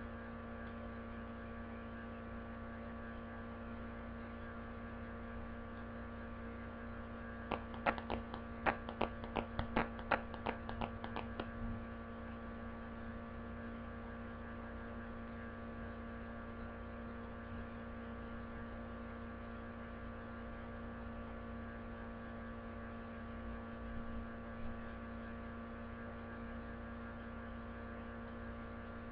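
Steady electrical mains hum with several fixed tones. About eight seconds in comes a quick run of a dozen or so light clicks and taps lasting about four seconds, from Yu-Gi-Oh trading cards being handled, with a few fainter knocks later on.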